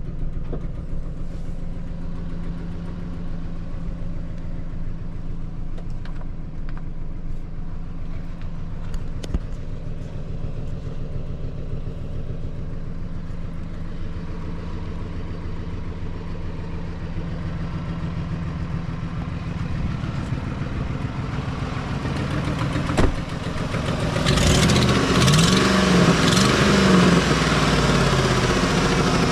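2008 Ford F250 pickup's engine idling steadily, heard from inside the cab. Near the end it grows louder, heard at the open engine bay, and its pitch rises and falls a few times.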